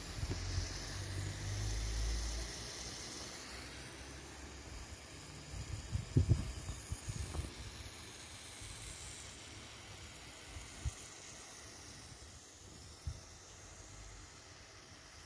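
Small homemade stationary live steam engine hissing steam steadily. A low rumble of wind on the microphone sits under the first couple of seconds, and a cluster of soft knocks comes about halfway through.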